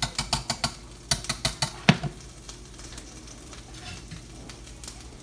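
A utensil scraping and tapping against a stainless steel saucepan while mashed potatoes are scooped out: quick clicks about five a second, then a single louder knock about two seconds in.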